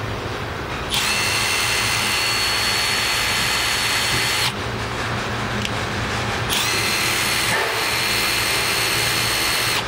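Milwaukee M12 Fuel 1/4-inch hex impact driver running free with no load: a steady high-pitched motor whine without hammering, in two runs of about three and a half and three seconds with a short pause between.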